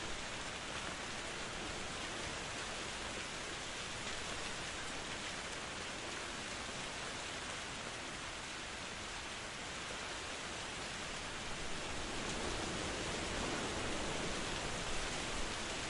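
Steady rain, an even hiss with no distinct drops, growing fuller and a little louder over the last few seconds.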